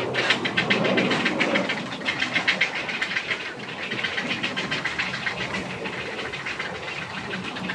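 Grey heron chicks in a nesting colony giving rapid, clattering chick calls, several overlapping in a continuous chatter.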